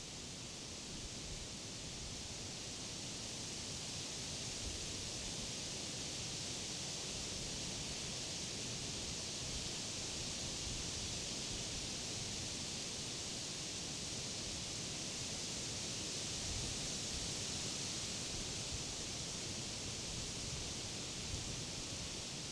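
Wind blowing through leafy summer trees, a steady rustle of foliage with a low rumble underneath, swelling gently a few seconds in and holding.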